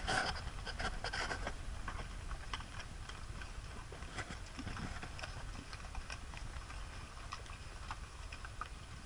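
Horse hooves clopping on a rocky trail: irregular sharp clicks of shod hooves striking stone, a little louder in the first second or so, over a steady low rumble.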